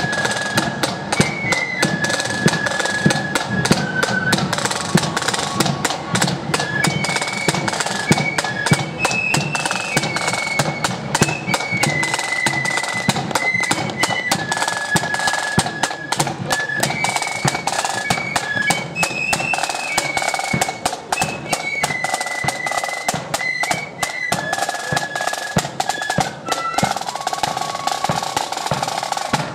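Marching flute band: flutes playing a tune in unison over rapid snare drum rolls and strokes and a bass drum beat.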